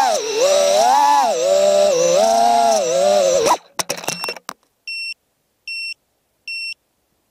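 3-inch FPV drone's motors and propellers whining, the pitch rising and falling with throttle, cutting out about three and a half seconds in as the drone crashes into the grass with a few sharp clattering hits. Then three short, high beeps, less than a second apart, from the downed drone.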